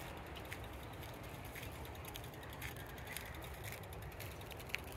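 Quiet outdoor background: a steady low rumble with scattered faint ticks and one sharper click near the end.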